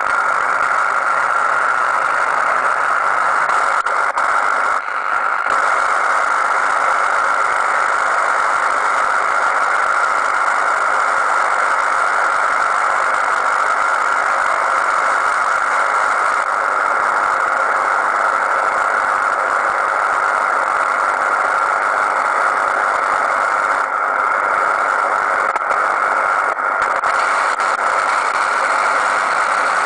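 Radio receiver tuned to a 4G LTE base station's 20 MHz-wide OFDM signal, which is heard as steady, harsh noise. It comes out as an even, loud hiss strongest in the middle pitches, with a slight dip about five seconds in.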